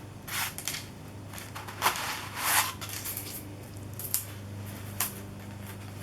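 Plastic stencil sheets being handled and swapped, with several short rustles and rubbing sounds over a low steady hum.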